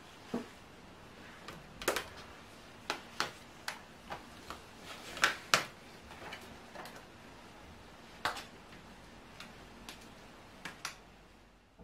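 Scattered light clicks and taps of makeup products and cases being handled on a table, irregular, with a sharper pair about halfway through.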